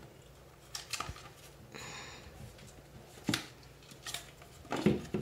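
Peel-and-stick vinyl floor tile being laid into place and pressed down by hand: a few light clicks and taps of the tile against the floor, with a short scraping rustle about two seconds in.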